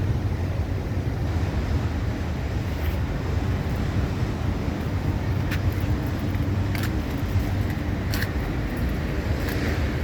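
Wind blowing steadily with a low rumble, with a few faint sharp clicks in the second half.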